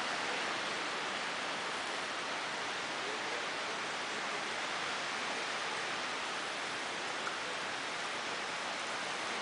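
A steady, even hiss with no distinct calls or knocks.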